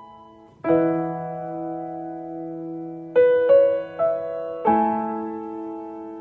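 Background piano music: slow, sustained chords that ring and fade, with a short run of quicker notes in the middle.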